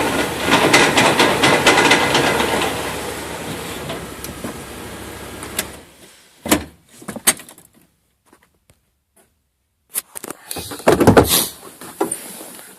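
1997 Dodge Ram 1500 4x4 front driveline banging and clunking while the truck turns in four-wheel drive, over the engine running; the noise comes only when turning in four-wheel, not going straight or in two-wheel. It fades and the engine sound stops about six seconds in, followed by a few separate knocks and clatters.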